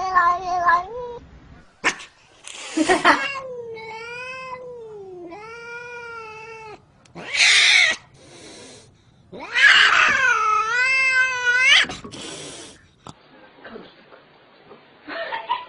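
Domestic cat yowling in several long, wavering calls, with short harsh noisy bursts between them.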